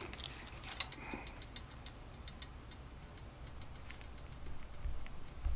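Faint, light ticking, about four or five sharp ticks a second for a couple of seconds, over a low hum, followed by two dull low thuds near the end.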